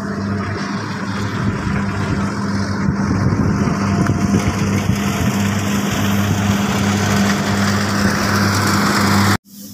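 Rice combine harvester running steadily under load, a constant low engine hum under a dense clatter and rush of the cutting and threshing machinery. The sound cuts off abruptly near the end.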